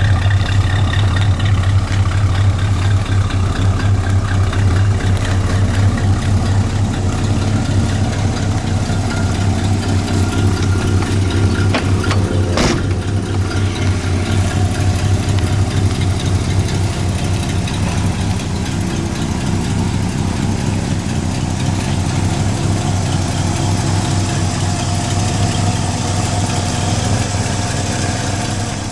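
The 1953 Studebaker Commander's V8 idling steadily, its exhaust pulsing evenly and easing a little near the end. A single sharp click comes about halfway through.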